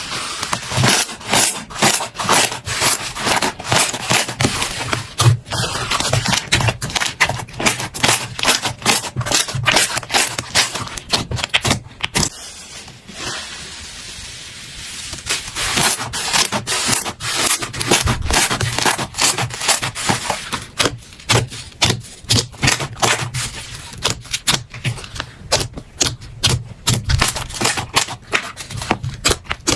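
Slime being squeezed and pressed by hand, making rapid, irregular clicking and popping, with a quieter stretch about halfway through.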